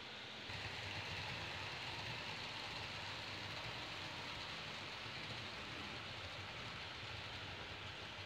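H0-scale TGV-type model trainset running along Märklin C-track, a steady rolling rumble and hiss. It swells about half a second in as the train comes through, then slowly eases.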